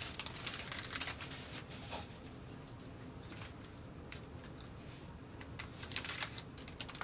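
Light crinkling and rustling of a small plastic tea-flower wrapper being handled, with scissors snipping it open near the end.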